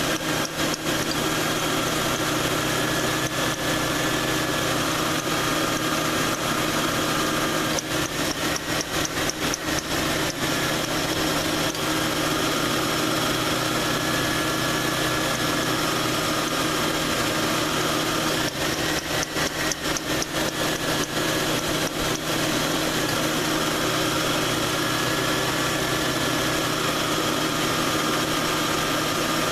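Ford Crown Victoria 4.6-litre V8 idling with the hood open, the accessory belt and engine note rising and falling every several seconds as the A/C compressor clutch cycles on and off with the heater running. The owner doesn't know why the compressor cycles.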